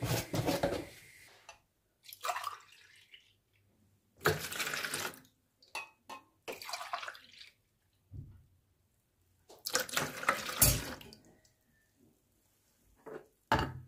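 Warm milk poured from a drinking glass into a mixing bowl of water, in several separate splashing pours of about a second each.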